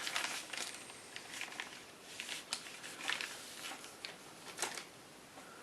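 Hands handling small airsoft rifle parts and a new piston spring: scattered light clicks and rustles, with a few sharper ticks.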